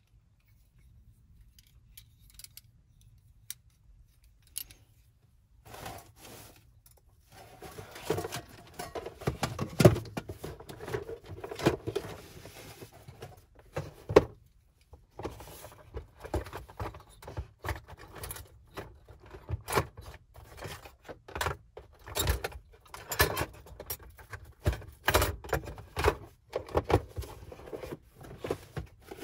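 Metal clinks and rattles as a compact gas burner's fold-out parts are handled and set up, mixed with knocks and rustling of gear being moved about. Faint at first, then busier from a few seconds in.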